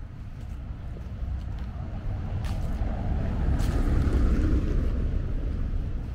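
A road vehicle passing by: a rushing noise that swells to its loudest about four seconds in, then fades.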